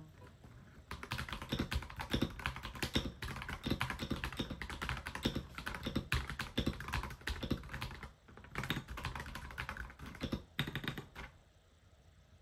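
Typing on a mechanical keyboard: a quick, uneven run of key clicks starting about a second in, with a brief pause about eight seconds in, stopping near the end.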